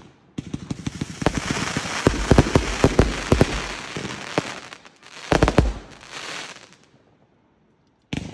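Fireworks display: a rapid volley of bangs with dense crackling for about five seconds, then a second short burst of bangs and crackle. It dies away to near silence, and a fresh sharp bang comes just before the end.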